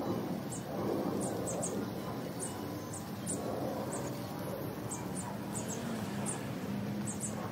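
High, thin squeaky chirps of a small bird, repeating irregularly two or three times a second over a steady low background rumble.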